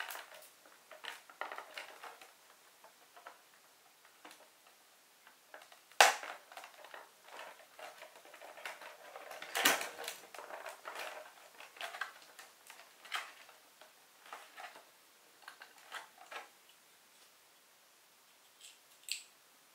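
Plastic clicks, taps and rustles from handling the plastic body of a WPL D12 RC pickup and fitting small plastic parts onto it. There is a sharp knock about six seconds in and a louder clatter just before ten seconds.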